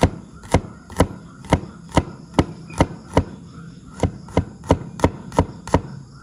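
Cleaver chopping garlic cloves on a plastic cutting board: sharp, regular knocks about two a second, quickening a little after the middle.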